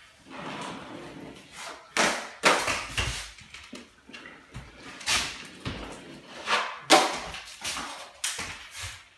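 Drywall knife scraping joint compound off a mud pan and across the wall: a series of short, sharp scraping strokes, irregular and about one or two a second.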